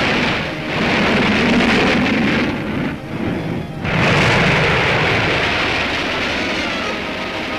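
Rocket engine noise from the US Navy Vanguard rocket at lift-off, dropping away about two and a half seconds in as it loses thrust, then a sudden loud explosion about four seconds in as the rocket falls back and blows up on its pad, its rumble slowly dying down.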